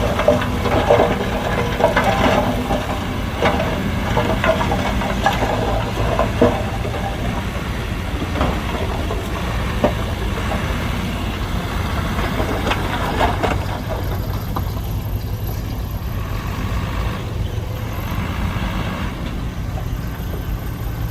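Heavy diesel construction machine engine running steadily, with repeated clanks and knocks of metal and material for most of the stretch that ease off near the end.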